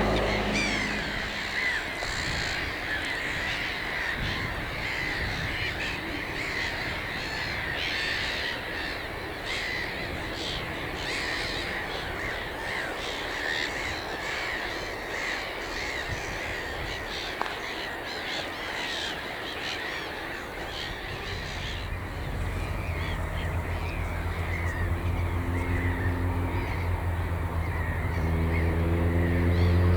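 Many wild birds calling at once in a dense, overlapping chorus. About two-thirds of the way in, a motor vehicle's engine comes in and grows steadily louder toward the end.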